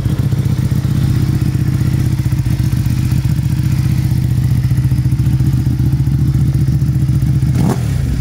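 Ducati Panigale V2's 955 cc Superquadro L-twin engine idling with a steady, even beat.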